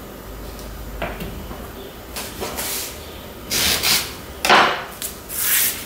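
Bananas being peeled by hand and broken into a plastic mixing bowl on a wooden cutting board: a series of short rustles and soft knocks, the loudest about four and a half seconds in.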